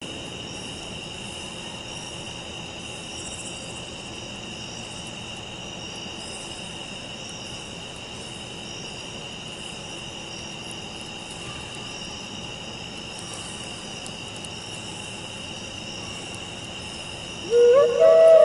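Chorus of night insects: a steady high trill with faster pulsing calls above it. About a second before the end, a Native American style flute in mid E begins a note.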